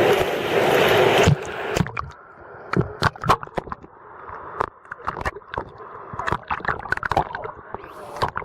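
A loud rush of water noise that cuts off abruptly about a second in. Then quieter water sloshing and gurgling, with irregular knocks and splashes.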